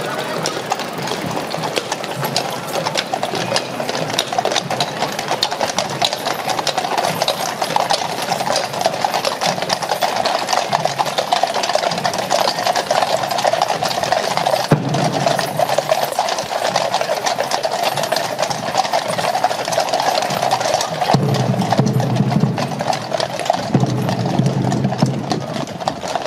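Hooves of a column of horses clip-clopping on a wet paved road as they walk past, many overlapping hoofbeats in a dense, steady clatter.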